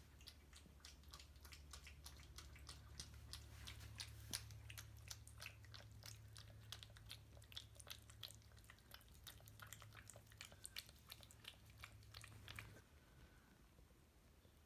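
A cat crunching and chewing a treat: quick, irregular, faint crunches, over a low steady hum. Both stop about two seconds before the end.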